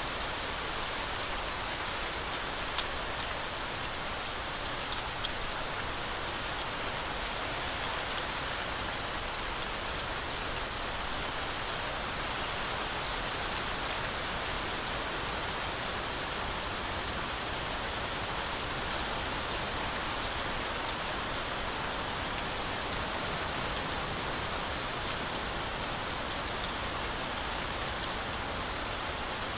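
Heavy rain falling steadily, a dense even hiss of drops with a few single drops ticking out above it.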